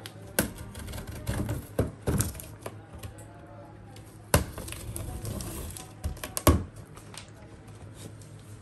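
Plastic safety box cutter slitting packing tape on a large cardboard box: scratchy cutting noise broken by scattered sharp clicks and knocks against the cardboard, the loudest a little over 4 s in and at about 6.5 s.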